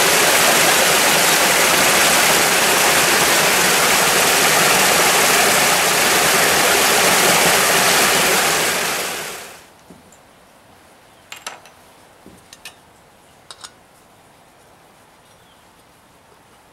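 Small rocky creek running over stones, a loud steady rush that fades out about nine seconds in. Then a few light clicks and taps as gear is handled on a wooden table.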